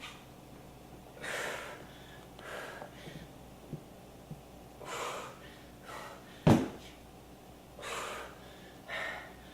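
A person breathing hard from exertion during high-intensity exercise, a series of short forceful breaths every second or so. A single sharp thump about six and a half seconds in is the loudest sound.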